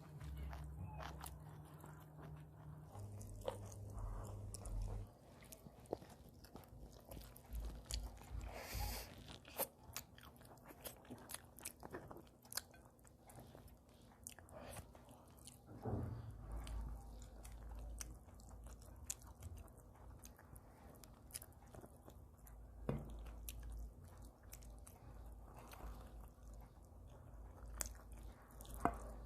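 A person eating close to the microphone: chewing and biting food, with many small sharp mouth clicks scattered throughout.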